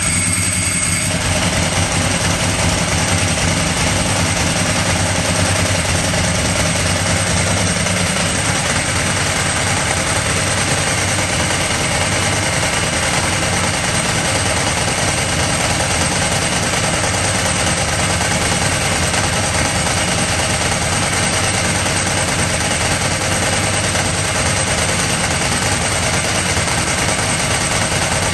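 Ducati 998 Testastretta's L-twin engine running at idle, with a steady mechanical rattle. The low hum thins out about eight seconds in while the rattle goes on.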